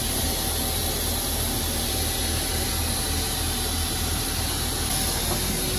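Steady rushing noise of a parked Boeing 737-900ER's running air systems at the forward boarding door: a strong low hum under even hiss, with a faint steady tone above.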